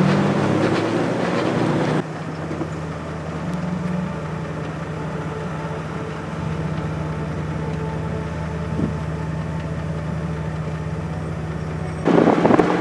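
Four-wheel-drive vehicle's engine running steadily at low speed, with a constant low hum, heard across abrupt edits. The first two seconds are louder and noisier, and a brief loud rushing noise comes near the end.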